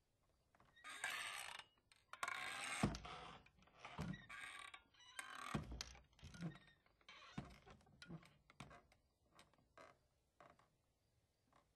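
Wooden door being worked on its hinges: scraping creaks for the first few seconds, then a series of knocks and thuds as it bumps and latches, trailing off into fainter clicks.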